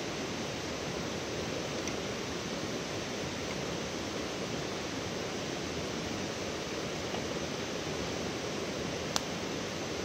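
A steady rushing noise, like flowing water, with a single sharp click about nine seconds in.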